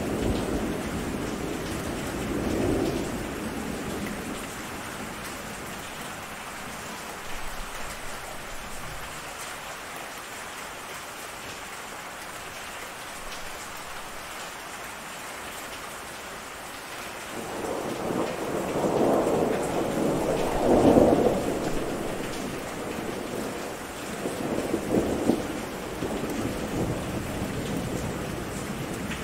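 Steady rain falling, with thunder rumbling: a short roll near the start, a longer, louder one building past the middle, and another shortly after it.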